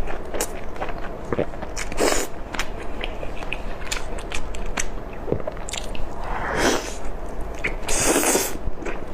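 Close-up eating sounds of someone biting into and chewing braised chicken legs: many small wet clicks and smacks, with a few longer sucking or slurping swishes.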